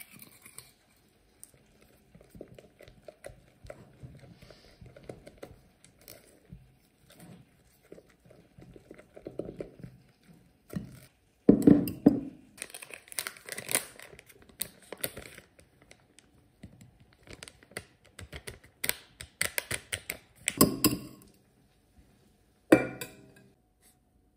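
A metal whisk and spatula scraping and tapping in bowls as thick cream is mixed, with a few louder clatters of utensil against bowl, one about halfway and two near the end.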